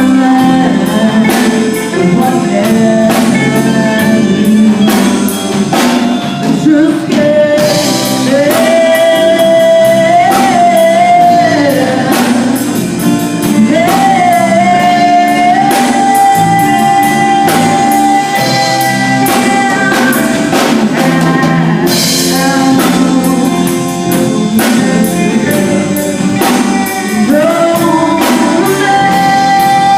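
Live rock band playing: a singer's melody with long held notes over drum kit and accompanying instruments.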